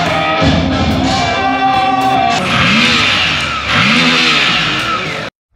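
Background rock music with guitar. About halfway through, two swells rise and fall in pitch over a burst of hiss, and the sound cuts off suddenly near the end.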